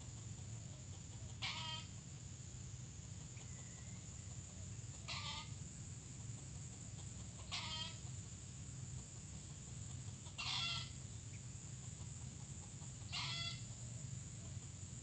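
Junglefowl giving five short, clipped calls, spaced a few seconds apart, over a steady low hum and a thin high-pitched drone.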